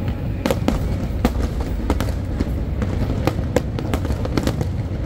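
Aerial fireworks shells bursting in a rapid run of sharp bangs and crackles, a dozen or more in five seconds, over a steady low rumble.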